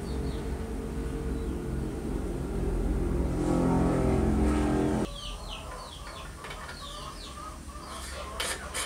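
Kerosene pouring from a plastic bottle into the brass tank of a Primus stove, heard as a low rumble that swells and then stops suddenly about five seconds in. Birds chirp after that, and near the end the brass filler cap clicks as it is screwed on.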